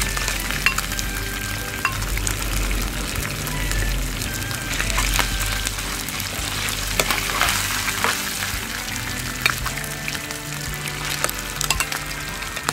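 Deboned chicken feet and chopped garlic sizzling in hot oil in a frying pan while being stirred, with short clicks of a plastic spoon against the pan now and then.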